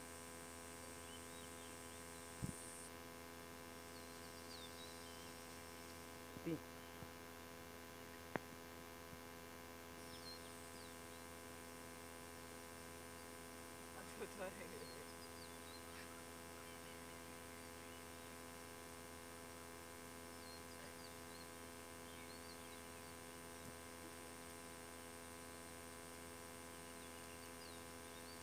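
Faint, steady electrical hum with a low drone, broken by a few sharp clicks and a brief, faint wavering sound about halfway through.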